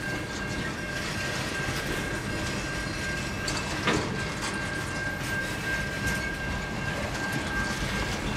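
Freight train boxcars rolling past on the rails: a steady rumble with scattered clicks and knocks from the wheels, a steady high whine throughout, and one sharp clank about four seconds in.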